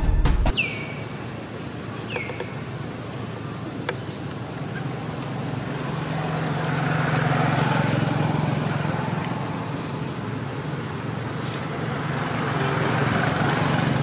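Music cuts off at the start. Then there is outdoor background noise with a steady road-traffic hum that swells and fades. In the first couple of seconds, two short high chirps fall in pitch.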